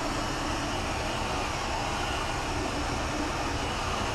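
Roomba robot vacuum running, a steady whirring hum of its motors and brushes that does not change.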